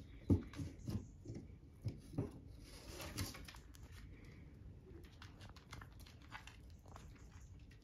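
Puppy rummaging among sticks and papers to pull out his chew toy: a run of sharp knocks and rustles for the first few seconds, then fainter scattered ticks.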